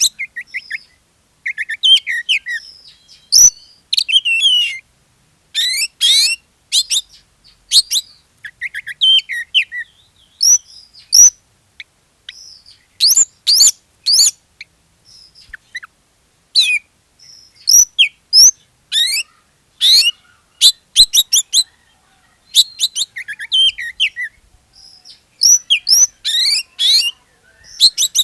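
Oriental magpie-robin (kacer) singing hard, in loud phrases of quick, varied whistles and chattering notes that slide up and down, each phrase a second or two long with short pauses between. This is the full, non-stop song of a bird in top singing form, the kind used to set other magpie-robins singing.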